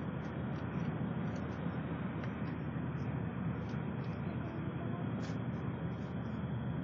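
Mercedes-Benz coach engine running steadily under way: an even, low drone that holds at one level throughout.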